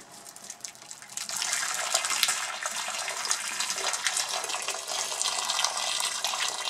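Boiling water poured in a stream into a sink, splashing onto a banknote lying in the basin. The splashing grows much louder about a second in and then stays steady.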